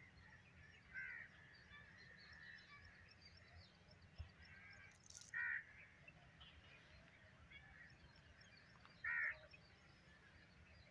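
A crow cawing three times, each a single short harsh call about four seconds apart, over faint chirping of small birds.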